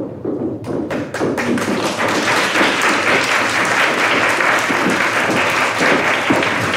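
Audience applauding: scattered claps under a second in that quickly swell into steady, full applause.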